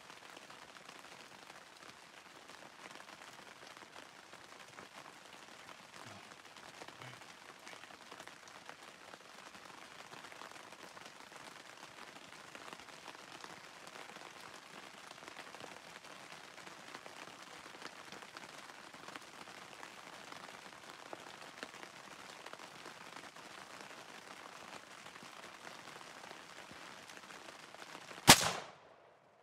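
Steady hiss of rain falling on the forest, then near the end a single sharp, loud .300 Blackout rifle shot fired at a black bear.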